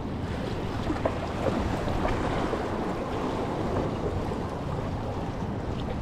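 Steady rush of ocean surf and wind, with a few faint clicks.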